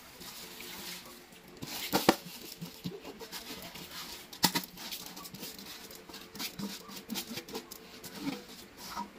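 Kitchen clatter from cookware and utensils: scattered clicks and knocks, with two sharper knocks about two and four and a half seconds in.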